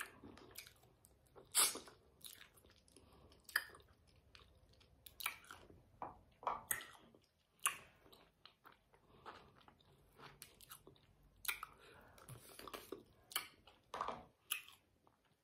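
A person chewing and biting spicy sauced chicken feet close to the microphone, with short sharp mouth clicks and smacks coming irregularly, roughly one a second.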